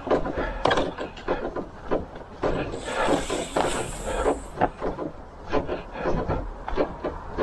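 Footsteps on a dirt and leaf-litter trail, with a shouldered carbon/kevlar canoe rubbing and knocking against the carrier at each step. A brief hiss comes about three seconds in.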